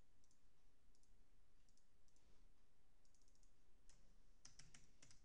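Faint computer mouse clicks, single and double, with a quick run of clicks about three seconds in. From about four and a half seconds, a run of about nine quick keyboard keystrokes as a word is typed.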